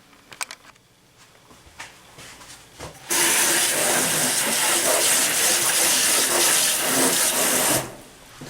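Water rushing from a movable shower-head sprayer fitted with a water purifier. It is turned on abruptly about three seconds in and shut off near the end, after a few light clicks and knocks.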